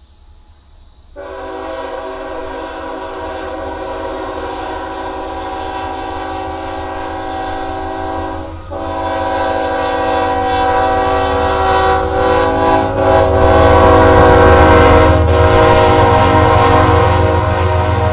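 Locomotive air horn on a GE ES44AC (CP 9366) sounding a multi-note chord. It starts suddenly about a second in, breaks briefly partway through, then sounds again in a longer, louder blast. The low rumble of the approaching train grows beneath it.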